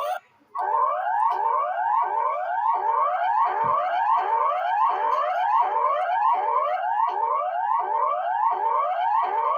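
Synthesized emergency-alert alarm tone: a rising whooping sweep that repeats about every three-quarters of a second, with a short dropout just after the start.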